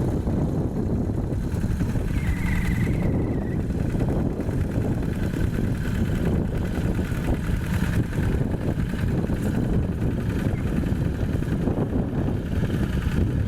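Single-cylinder Yanmar diesel engine of a Quick G1000 walking tractor running steadily while it pulls a plough through topsoil.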